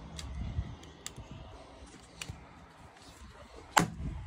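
Pneumatic nail gun firing once near the end, a single sharp shot as a nail is driven into the wood framing. Before it come a few light clicks and taps of handling.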